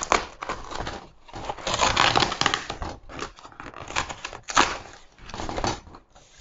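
Cardboard mailer being torn open and unfolded by hand: a long rip of cardboard about a second and a half in, among shorter tearing, rustling and crackling noises and a few sharp clicks as the flaps are pulled back.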